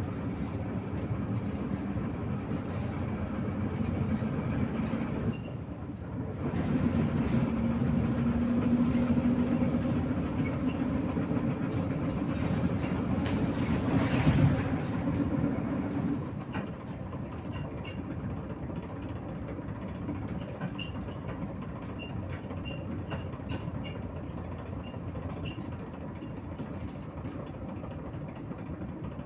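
Inside a MAZ 103 city bus on the move: the diesel engine running under load with road noise. The level dips briefly about six seconds in, the engine is louder until about sixteen seconds in, then it falls quieter, with faint light ticks in the later part.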